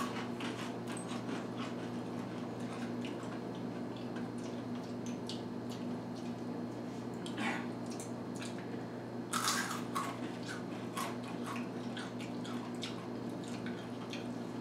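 Two people crunching and chewing Takis rolled corn tortilla chips: irregular crisp crunches, louder around 7.5 s and again about 9.5 to 10 s in, over a steady low hum.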